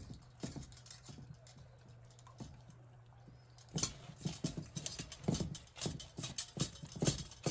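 Faint bubbling of chicken frying in a pot of oil, then, about four seconds in, a quick irregular run of knocks and taps as chicken pieces are handled between stainless-steel bowls of beaten egg and flour for breading.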